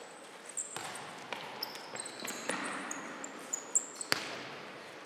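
Futsal ball being kicked and bouncing on a wooden hall floor, several sharp thuds spread through the few seconds, with short high squeaks of players' shoes on the floor.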